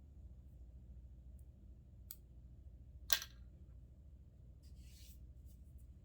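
Two sharp clicks, a small one about two seconds in and a louder one just after three seconds, with a faint rustle near the end, over a low steady hum: parts and hand tools being handled while taking things apart on a workbench.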